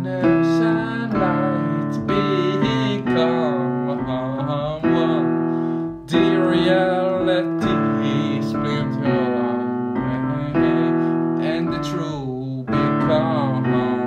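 Piano music: slow, held chords that change every second or two, with a melody line above that wavers in pitch.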